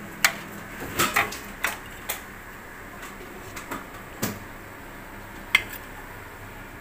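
A metal ladle clinking and knocking against the cooking pot and a plate as curry is dished out: several sharp separate clinks, the loudest just after the start and about five and a half seconds in.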